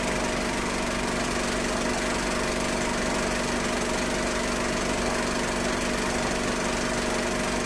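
A steady buzzing drone with a constant low hum, unchanging in level or pitch.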